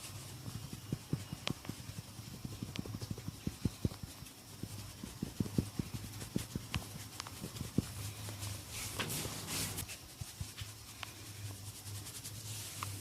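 Hands massaging a head: a quick run of short soft taps and pats for most of the time, then a brief rustle about nine seconds in, over a low steady hum.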